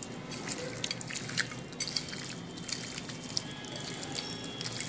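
A hand squishing and mixing raw chicken pieces in a wet spice marinade on a plate, giving soft, irregular wet clicks and squelches.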